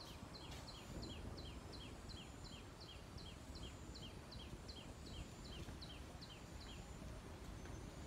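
A bird calling a long series of short, two-part downslurred chirps, about three a second, which stop about seven seconds in. Under it is a steady low background rumble of outdoor noise.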